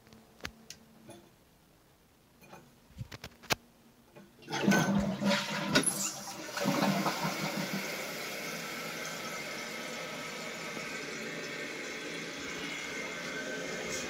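A few light clicks, then about four and a half seconds in the 2020 Jacuzzi Lyndsay toilet flushes with a loud rush of water. It settles after two or three seconds into a steady hiss of water as the open tank refills through its fill valve.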